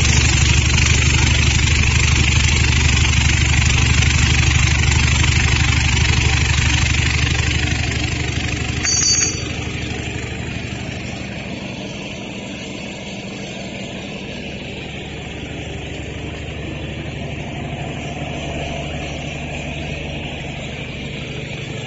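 Vibratory wheel polishing machine running: a steady low hum with a hiss over it. About nine seconds in there is a brief high squeak, after which the sound settles to a quieter level.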